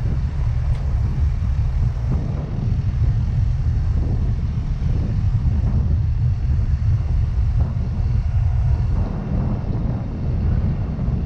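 Yamaha Mio Gravis scooter being ridden, with wind buffeting the microphone as a steady low rumble over the scooter's running.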